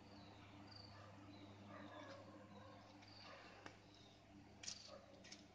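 Near silence: faint outdoor ambience of a low steady hum and scattered soft high chirps, with a few faint clicks in the second half.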